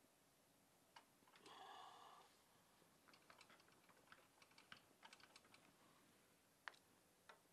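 Near silence with scattered faint clicks and taps of small parts and tools being handled during engine disassembly. There is a brief rustle about two seconds in and a sharper single click near the end.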